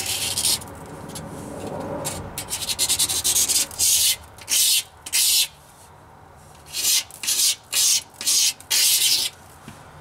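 Utility razor blade scraping old gunk off the lower cylinder-liner sealing surface in a Caterpillar D13000 engine block, in a series of short scraping strokes with a pause of about a second and a half just past the middle.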